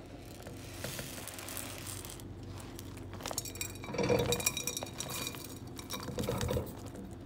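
Sliced onion and spices tipped from a bowl into a metal saucepan, with the bowl clinking and knocking against the pan. The ringing clinks are loudest about four seconds in and come again around six seconds.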